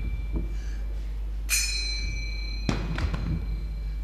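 A few soft thumps over a steady low hum, with a brief ringing tone about a second and a half in.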